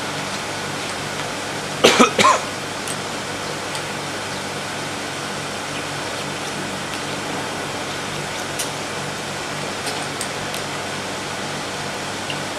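Steady hum of a running twin-screw extruder line, with two loud short coughs close together about two seconds in and a few faint clicks later on.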